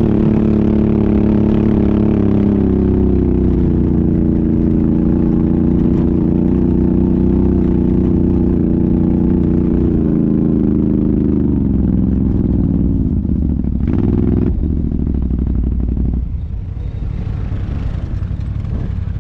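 ATV engine running steadily. Its pitch eases down twice as it slows, then it drops to a lower, quieter run near the end.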